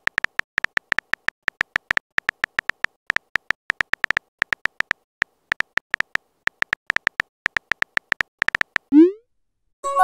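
Phone keyboard tap sounds, one short high click-tone per typed letter, coming several a second in an uneven stream. About nine seconds in they stop and a short rising swoop sounds as the message is sent.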